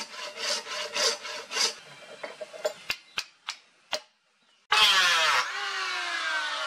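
A hand saw cutting a wooden knife-handle block held in a vise, about two to three strokes a second, tailing off into a few light knocks. Then, about two-thirds of the way in, an electric hand planer cuts in loudly, and its motor whine slowly falls in pitch.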